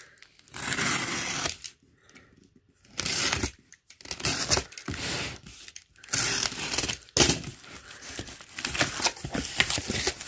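Packaging being torn open by hand: several separate rips and rustles with short pauses between them.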